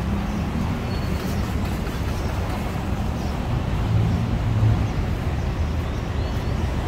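Steady road traffic on a busy city street: a constant low rumble of passing vehicles that swells briefly about four seconds in.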